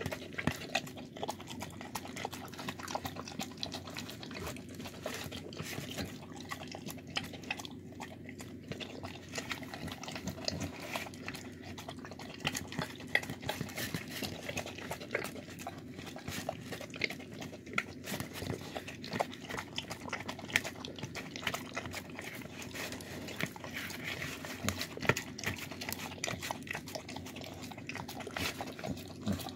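Dog eating a wet meal of chicken, rice and beans from a clear plastic tub: continuous wet smacking, licking and chewing, with many small irregular clicks.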